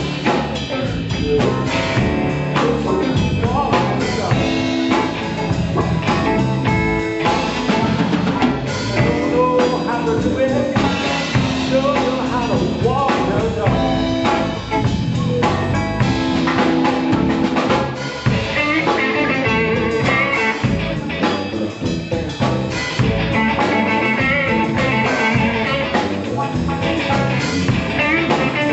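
A live blues band playing: electric guitars, bass and drum kit keeping a steady groove, with wavering electric guitar notes coming forward in the last third.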